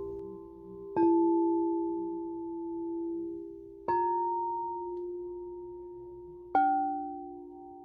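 Singing bowls struck three times, about three seconds apart, each strike at a different pitch and ringing on as it slowly fades.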